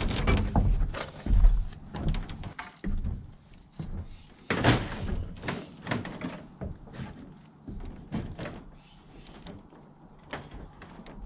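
Water poured from a cup splashing onto and running down a clear corrugated plastic roof panel, with a scatter of drips and knocks, loudest at first and dying away.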